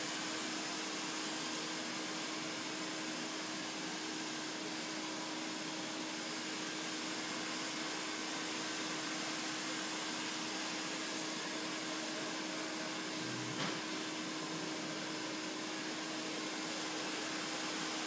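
A fan-driven blower running steadily: an even rushing hiss with a steady low hum under it. A light tap about thirteen seconds in.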